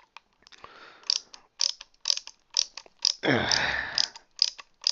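Small screwdriver driving tiny screws to mount an SSD in a laptop, clicking about twice a second, with a longer grating creak about three seconds in.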